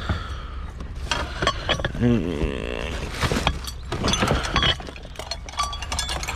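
Glass light-fixture globes clinking and knocking against each other as they are handled, with repeated chinks and brief ringing.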